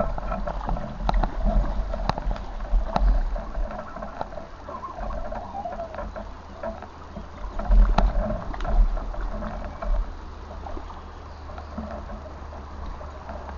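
Water of a small stream running, with scattered sharp knocks and uneven low thumps, busiest in the first few seconds and again about eight seconds in.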